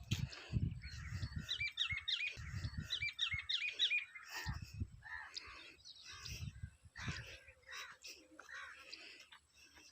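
Small birds chirping and twittering, with a quick run of repeated high chirps a second or two in. Low rumbles come and go underneath several times.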